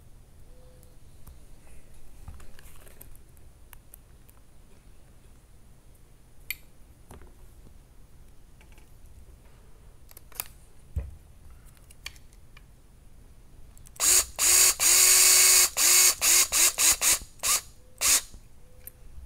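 A cordless electric screwdriver runs, one longer burst followed by a string of short trigger pulses, driving small 3x10 screws into the plastic chassis cross member. Before it, only faint clicks of plastic parts being handled.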